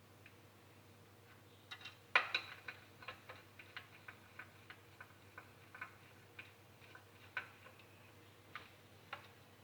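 A run of small, sharp clicks, two or three a second and not quite evenly spaced, starting a little under two seconds in, the loudest cluster right at the start.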